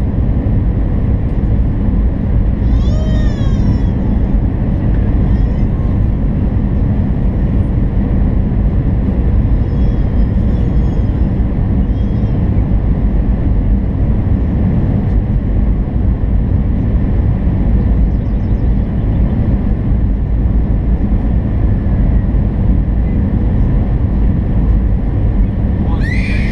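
Steady loud roar of an Airbus A319 airliner's engines and airflow, heard inside the cabin at a window seat over the wing during the descent on approach.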